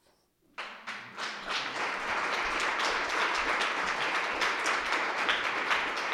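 An audience applauding; the clapping starts about half a second in and holds steady.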